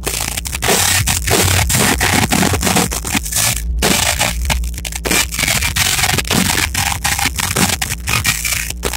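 Live hard rock band playing loud, with drums and electric guitar, recorded on a phone microphone that clips badly, so the music comes through as a crackling, distorted wash.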